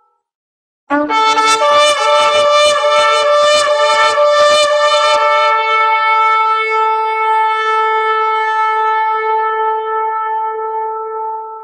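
Outro music on a wind instrument, starting about a second in. A quick flourish of short notes settles into one long held note that fades near the end.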